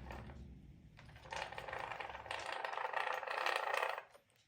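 Drivetrain of a large-scale MCD XS5 RC car turned by hand. The gears and differential rattle and whir for about three seconds, starting just over a second in, as the wheels roll free with no drag from the newly fitted disc brakes.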